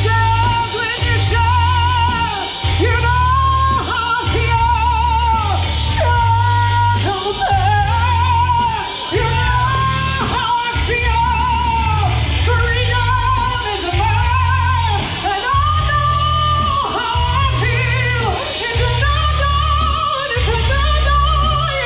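Woman singing live into a microphone over a recorded backing track, holding long notes with wide vibrato above a pulsing bass line.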